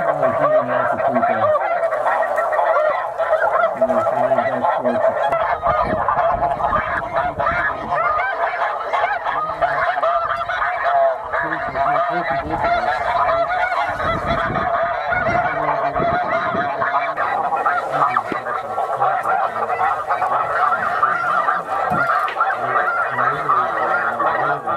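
Huge flocks of snow geese calling overhead: a continuous din of many overlapping high, nasal honks from hundreds of birds at once.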